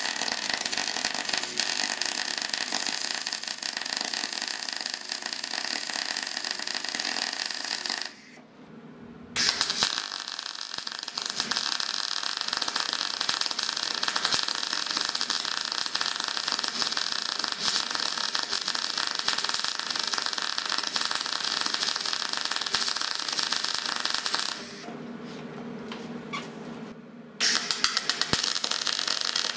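Gas-shielded MIG welding arc of a Deca Decastar 150E welder, running with a steady, dense crackle as a bead is laid on steel. The arc stops about eight seconds in and strikes again a second or so later, then breaks off for about three seconds near the end before striking again.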